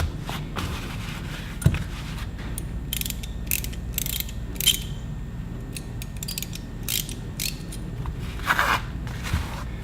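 Small hand ratchet being worked, its pawl clicking in short irregular runs, with a louder rattle near the end.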